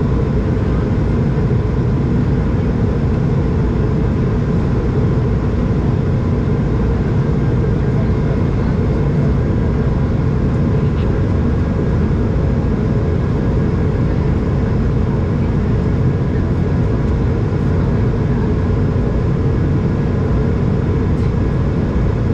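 Steady cabin noise inside an Airbus A220 in flight: a deep, even rush of air and the hum of its Pratt & Whitney PW1500G geared turbofan engines, with a few faint steady tones above it.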